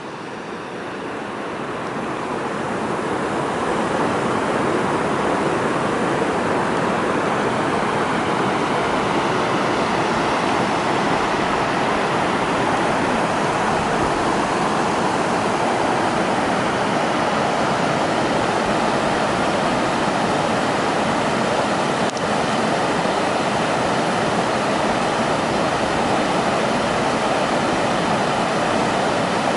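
Mountain stream rushing over rocks, a steady even rush of water that fades in over the first few seconds and then holds level.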